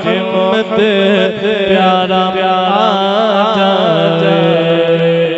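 A man chanting an Urdu/Punjabi naat into a microphone, his melody bending through short ornamented phrases, then settling into one long held note about four seconds in.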